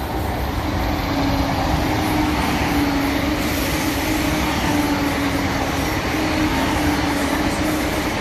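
Southern Class 171 Turbostar diesel multiple unit running past: a steady diesel engine drone holding one tone, over the rumble of wheels on the rails.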